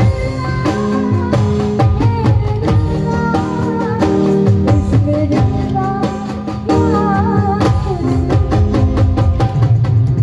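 Live Hindi song through a PA: a woman singing over keyboard, dholak and drums with a steady beat.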